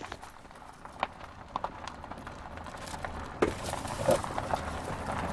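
Irregular footsteps and knocks on a gravel and dirt drive, scattered clicks over a low background hiss.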